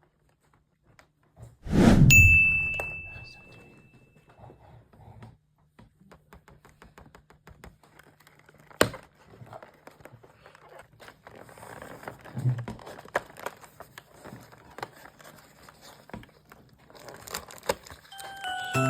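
Cardboard advent calendar and trading-card packaging being handled and opened: scattered clicks and rustling. About two seconds in there is a loud thump with a short ringing ding.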